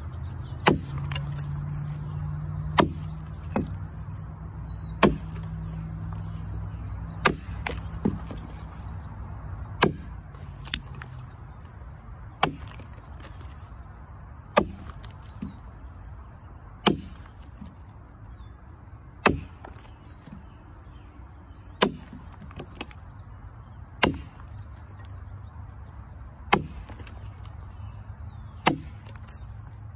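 Axe chopping into a cottonwood log with a 5.5 lb Kentucky pattern axe head: a sharp chop about every two seconds, some followed by a lighter knock. A low steady hum sits under the first few strokes.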